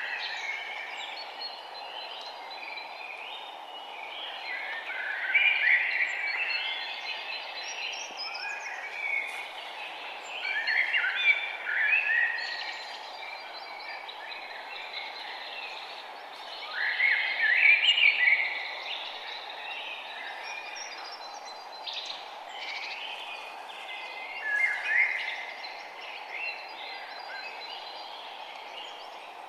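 Forest birds singing, with louder song phrases recurring about every six seconds and fainter chirps between, over a steady background hiss.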